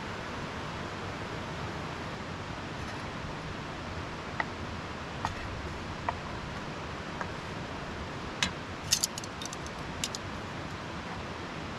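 Fish frying in a pan over a camp stove: a steady sizzling hiss, with a handful of sharp metallic clicks and taps scattered through, several close together about three-quarters of the way in.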